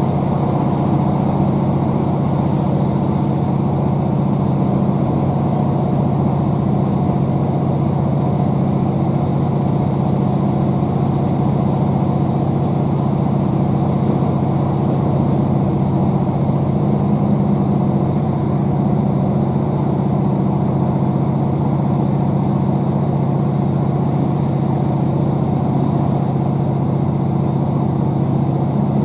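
Underfloor MAN D2876 straight-six diesel engine of a Class 769 bi-mode train, heard inside the coach it is fitted to, running with a steady drone while the train is under way. Wheel and rail noise run under it.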